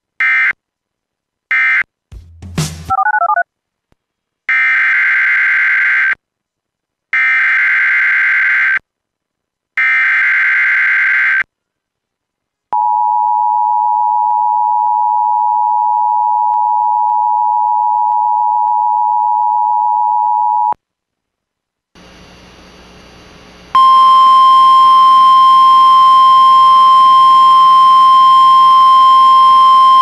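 Emergency Alert System tones from a weather-radio broadcast. First come three short end-of-message data bursts and a brief warbling glitch, then three longer SAME header bursts of buzzing data tone. About halfway through comes the eight-second EAS two-tone attention signal, and after a short faint pause the steady 1050 Hz NOAA Weather Radio alert tone starts and carries on to the end.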